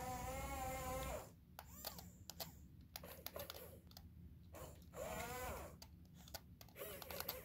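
Double E RC excavator's small electric motors whining in three short spells as the boom and arm move, the pitch wavering with the load, with light plastic clicking and ticking in between.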